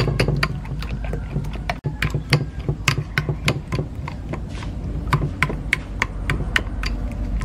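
Metal spoon clicking against a ceramic bowl as it beats duck eggs and fish roe together: a run of quick, uneven taps, a few each second.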